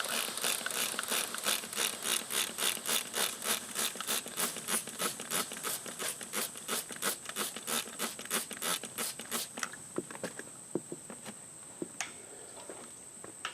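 Rhythmic scraping, about three strokes a second, that stops about two-thirds of the way through, followed by a few scattered clicks; a steady high insect buzz runs underneath.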